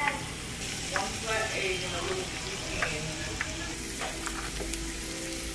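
Flour tortilla frying in hot oil in a pan: a steady sizzle, with a few sharp clicks.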